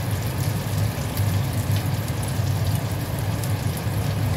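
Lentil meatballs sizzling and crackling as they shallow-fry in hot oil in a wok, with a steady low hum underneath.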